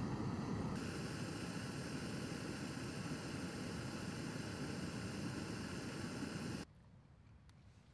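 Canister backpacking stove burning at full flame under a kettle, a steady rushing hiss that cuts off abruptly about a second before the end.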